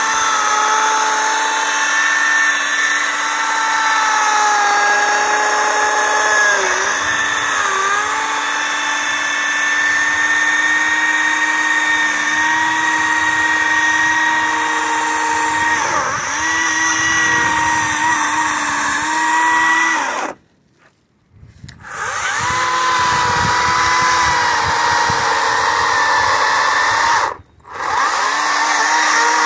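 Cordless electric chainsaw (Kobalt) cutting into an oak log, its motor whining steadily with brief dips in pitch as the chain loads up in the wood. The sound drops out twice, about two-thirds of the way in and again near the end.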